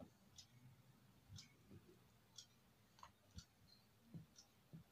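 Near silence broken by faint, scattered clicks and soft thumps as kittens wrestle and paw at each other on a cloth-covered bed.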